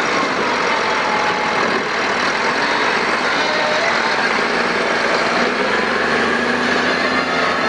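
Heavy diesel machinery running steadily, with faint whines that slide down in pitch early on and rise again later.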